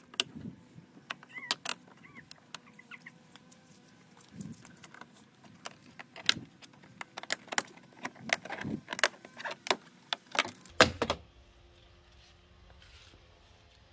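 Plastic door trim clips on a Ford Ranger PXIII clicking and rattling as a small trim piece is worked loose and clipped back in: a string of sharp, irregular clicks, ending in a heavier knock about eleven seconds in.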